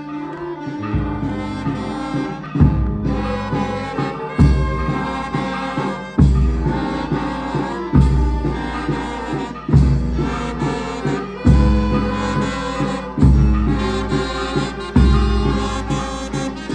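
Folk band music with brass, driven by a heavy low beat about every second and three quarters.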